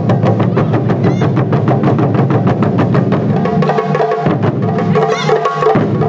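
Taiko ensemble drumming on nagado-daiko barrel drums: a fast, even run of drum strokes, about six a second, played together by many drummers.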